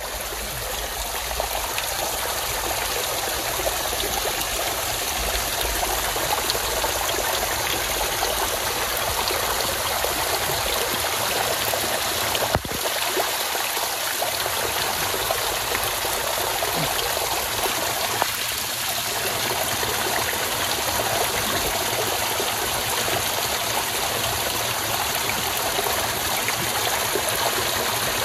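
Water pouring and dripping down through tree roots and splashing into muddy standing water: a steady rush of running, splashing water.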